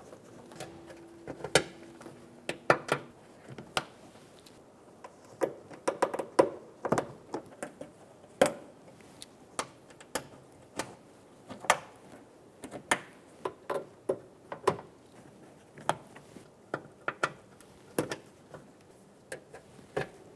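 Plastic push-in trim clips being pressed one by one into the trunk lid liner, each snapping in with a sharp click, roughly one a second.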